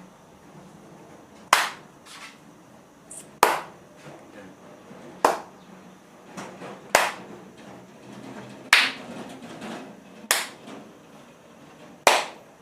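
Loud finger snaps, seven sharp ones in a row, about one every two seconds.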